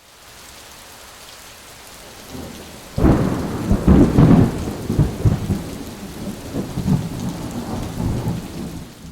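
A thunderstorm: steady rain, then thunder breaking loudly about three seconds in and rumbling on.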